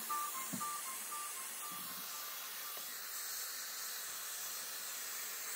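Dyson Airwrap hair styler running, blowing air through its round brush attachment: a steady hiss of rushing air.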